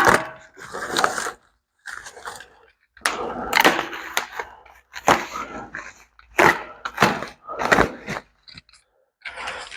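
Crinkling and rustling of packaging wrap being pulled off and handled while unwrapping a new set of exhaust headers, in irregular bursts with short pauses between them.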